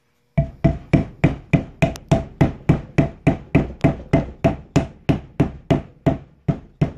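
Rubber mallet tapping a wheel seal down into the cast aluminium front wheel hub of a 1997 Honda Magna VF750C, worked around the seal's edge. Steady, even taps about three a second, starting about half a second in.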